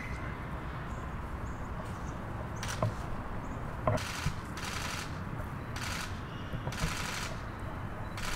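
Camera shutters firing in short rapid bursts, several in a row about a second apart from a third of the way in, over a low steady background rumble.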